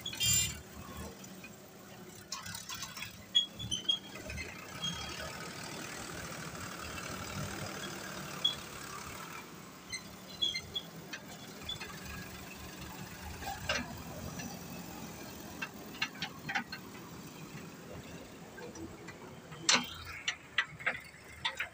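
JCB 3DX backhoe loader's diesel engine running steadily, with a short burst of noise as soil tips from its front bucket into a tractor trolley just after the start. Scattered sharp knocks and clanks, more of them in the last few seconds.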